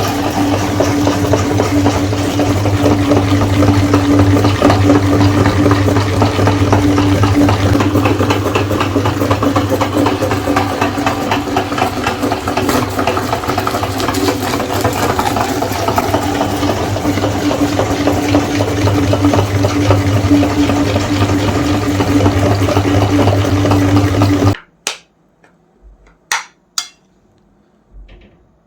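Electric meat grinder running steadily with a crackly grinding texture over its motor hum, grinding ice cream bars; it cuts off suddenly about 24 seconds in, followed by a few short clicks.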